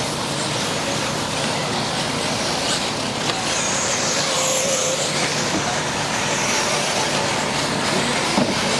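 Electric RC buggies racing on a dirt track: their motors whine in high pitches that rise and fall over a steady hiss of track noise, with a brief clack near the end.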